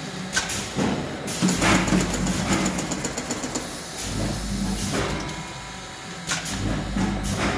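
Plastic bag packing machine running: a steady hum with a low rumble that comes and goes, and repeated sharp pneumatic hisses and clacks as the machine works through the bags. A quick run of light ticks comes about two seconds in.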